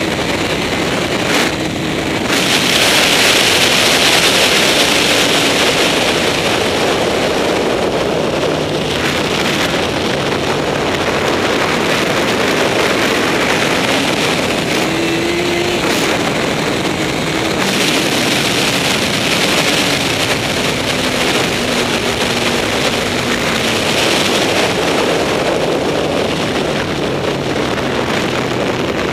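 Honda CBR954RR's inline-four engine running hard on track, its pitch climbing and dropping several times, under heavy wind rush on the onboard microphone that swells louder at about two seconds in and again past the middle.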